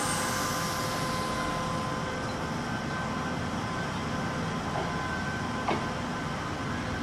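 Sanyo Electric Railway 3000 series electric train pulling away from the platform, its running noise steady. A high hiss fades away in the first second, and a single sharp click comes late on.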